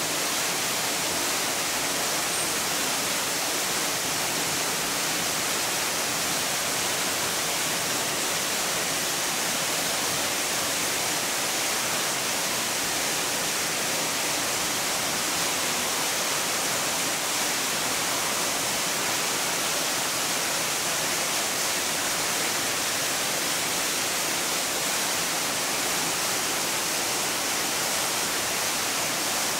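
Steady hiss of falling water, even and unbroken throughout, with no splashes or calls standing out.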